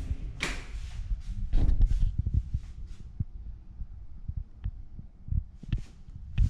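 Irregular low thumps with a few light knocks and rustles, the sound of someone walking across a floor and handling a camera.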